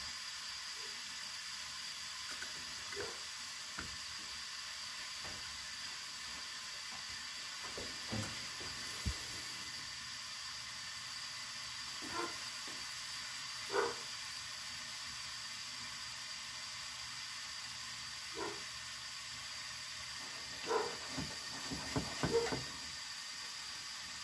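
Chayote squash with onions and garlic cooking under a lid in a frying pan over lowered heat, giving a steady soft sizzling hiss. Occasional small pops and ticks come through it, a few more of them near the end.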